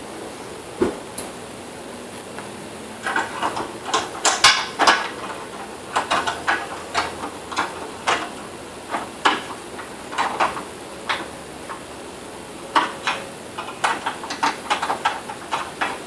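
Small screwdriver and mounting screw clicking and tapping against the elliptical bike's console mount as the screw is worked into place: irregular sharp clicks in short clusters, with pauses between.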